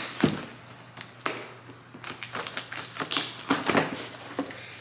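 Cardboard shipping box being worked open by hand: irregular taps, scrapes and tearing of cardboard and packing tape.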